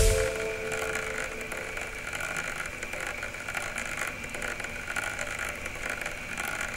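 A steady, faint drone: an even hiss with a couple of faint held tones, unchanging throughout.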